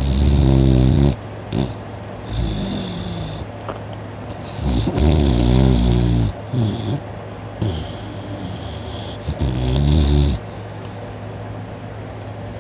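A person snoring loudly in deep sleep: a run of about six snores, one every one to two seconds, which stop about ten seconds in.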